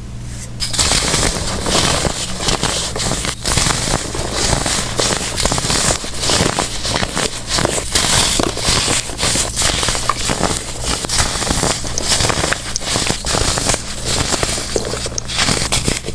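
Blocks of dried baking soda being crushed, a dense run of crunching and crackling.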